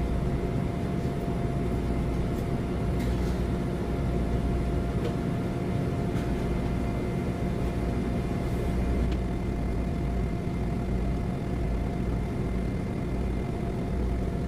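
A steady low mechanical hum with a constant mid-pitched tone running through it. A few light taps come from steel rollers being handled and fitted into a roller grill's frame.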